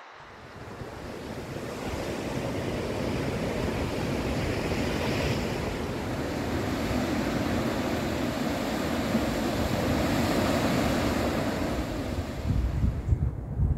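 Sea surf washing along the shore in a steady rush, with wind buffeting the microphone, gusting hardest near the end.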